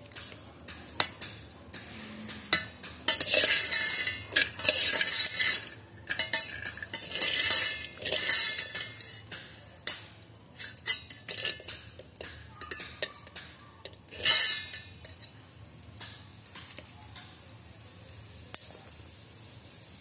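Steel spoon stirring dry-roasting peanuts in a stainless-steel electric kettle: a rattle of nuts scraped around the pot with clinks of the spoon against the metal wall. It is busiest through the first three quarters and dies down to a few scattered clinks near the end.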